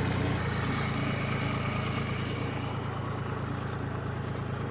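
Tractor engine running steadily at a low idle, growing gradually quieter toward the end.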